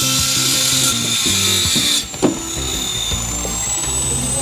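Hand-held power tool working timber, a loud steady hiss that cuts off abruptly about two seconds in, over background music.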